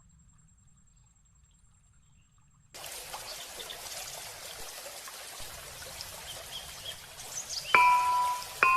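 Near silence for the first few seconds, then water starts trickling and splashing steadily a little under three seconds in. About a second before the end, a few clear bell-like chime notes begin over the water.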